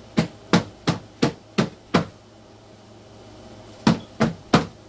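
A run of sharp knocks on something hard, about three a second: six in a row, then after a pause of nearly two seconds, three more.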